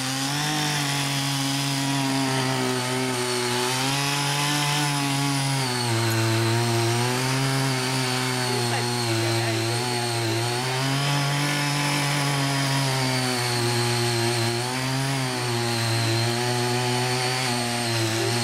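Ching Yee CY50 mini garden tiller's 48.6cc engine running hard while its six rotary tilling blades churn the soil. The engine note wavers, sagging and recovering every few seconds under the load of the tilling.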